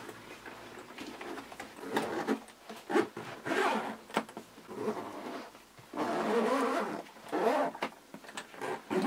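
Zipper on a drone carrying-case backpack being pulled shut around the lid in a series of irregular strokes, with some handling of the case.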